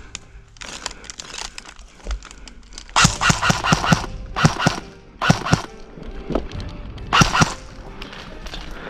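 Several short bursts of sharp cracks and clicks, the loudest from about three seconds in, over faint background music.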